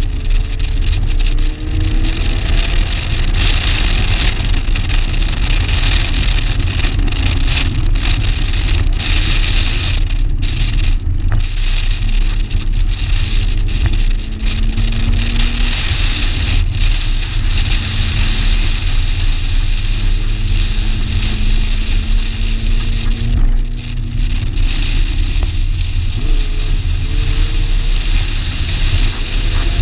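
1987 Shelby GLHS's turbocharged 2.2-litre four-cylinder engine pulling hard, its note climbing and dropping back several times through gear changes, beneath a heavy steady rumble.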